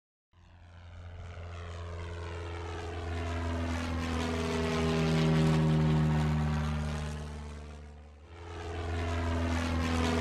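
Propeller-driven airplane engine droning as it flies by: it swells to a peak about halfway through and fades away, then swells again for a second pass near the end.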